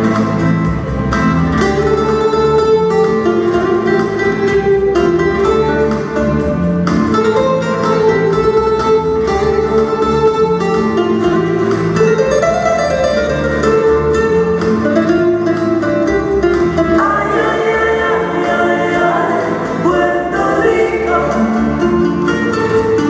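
Latin-style pop song: a singing voice over guitar and a steady beat, played as backing for a stage dance number.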